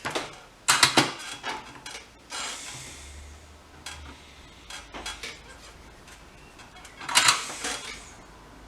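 Small metal tools clinking and tapping on a workbench while circuit-board pads are hand-soldered, in several clusters of sharp clicks, with a short hiss about two seconds in.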